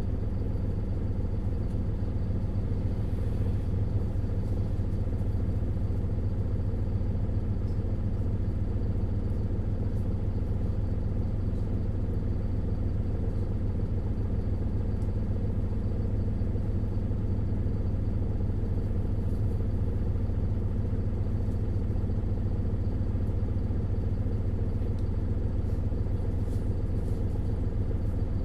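Isuzu Erga LV290N1 city bus's four-cylinder diesel engine running, heard from inside the cabin: a steady low rumble with no change in revs.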